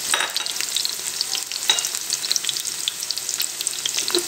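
Sliced onions frying in hot oil in a metal pot, crackling and sizzling steadily. A spatula stirs them, with a few louder scrapes against the pot.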